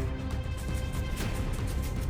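Background music with held notes, heavy bass and a regular percussive beat.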